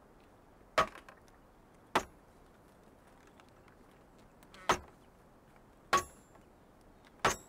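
Axe chopping into a log, five sharp strikes at uneven intervals, as the log is hewn square.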